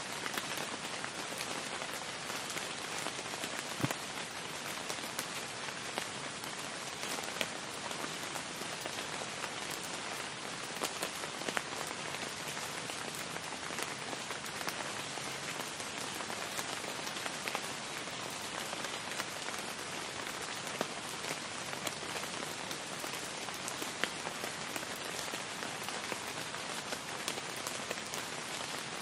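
Steady, heavy rain falling, with scattered sharp drop ticks close by.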